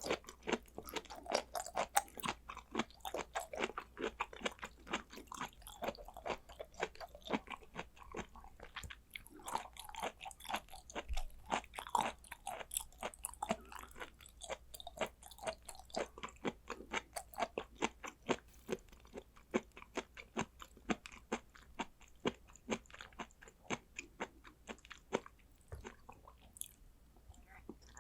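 A person chewing raw blood clam (ark clam) sashimi: a dense, uneven run of short mouth clicks and smacks, several a second, easing off briefly near the end.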